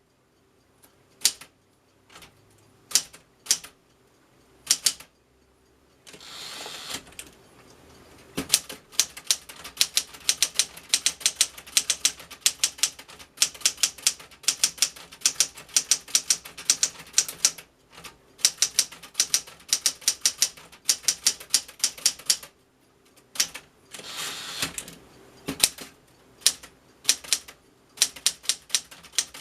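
Smith-Corona Galaxie Twelve manual portable typewriter being typed on, its typebars striking in sharp clacks: a few scattered strokes at first, then long fast runs of keystrokes. Twice there is a short rushing sound between the runs.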